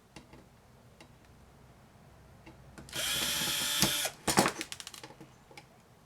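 Power drill spinning for about a second while backing out a screw, followed by a quick run of sharp clicks and rattles that fade out.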